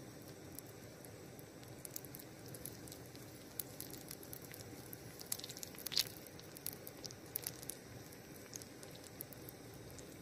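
Hot melted sap crackling and sizzling as it is scraped from a small pan with a twig onto a patch over a hole in a canoe hull: scattered small crackles over a low hiss, with one sharper crack about six seconds in.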